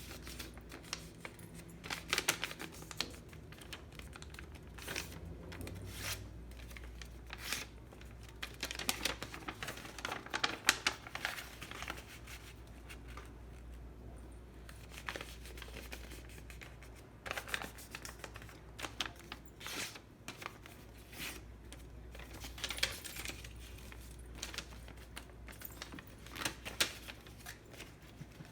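A sheet of origami paper rustling and crinkling in irregular spells as hands fold and crease it.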